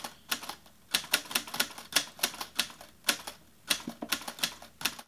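Typewriter keystroke sound effect: a run of sharp key clicks, several a second, in uneven bursts with short pauses.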